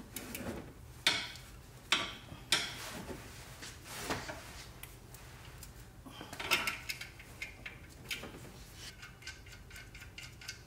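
Ratcheting wrench clicking on the lower bolt of a serpentine belt tensioner as the bolt is loosened, with scattered sharp metallic clicks and clanks of the tool on the bracket. Near the end comes a run of quick, even ratchet ticks.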